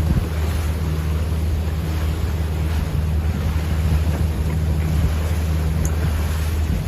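Boat engine running steadily as a constant low hum, with wind on the microphone and rushing water noise.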